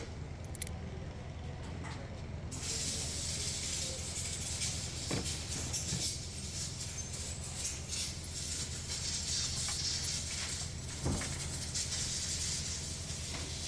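A steady low hum, joined a couple of seconds in by a continuous hiss that runs on to the end, with a few faint clicks.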